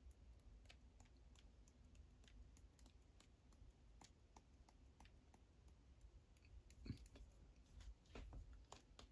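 Near silence with faint, irregular clicks: a stiff brush loaded with acrylic paint being flicked by finger to spatter paint onto paper.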